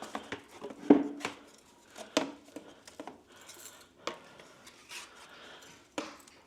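Cornice cement being mixed by hand: a tool scraping around a mixing container, with sharp clinks and knocks against its side, the loudest about a second in and just after two seconds.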